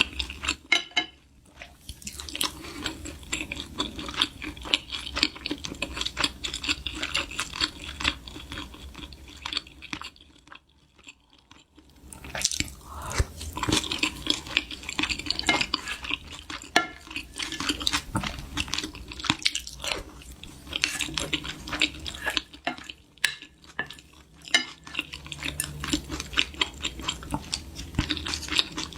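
Eating sounds: utensils clinking and scraping against bowls and dishes, with chewing. There is a brief lull about a third of the way in.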